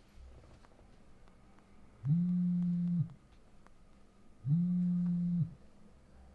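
Mobile phone on vibrate buzzing with an incoming call: two low, steady buzzes about a second long, about two and a half seconds apart, each winding up briefly at the start and dying down at the end.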